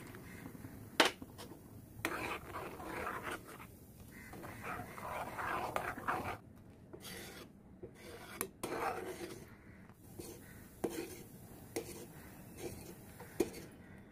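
Spoon stirring milk in a stainless steel saucepan, scraping against the pan in several spells, with a few sharp clicks of utensil on metal.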